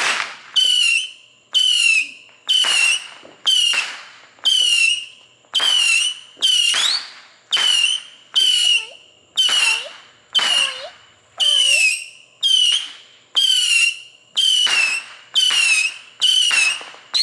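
Whistling firework going off in a fast, steady string of short whistles, about one and a half a second. Each starts suddenly, dips slightly in pitch and fades before the next.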